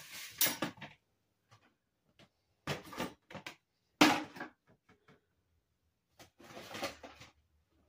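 Plastic storage containers and lids being handled and set down: several short bouts of knocking and rustling, the sharpest knock about four seconds in.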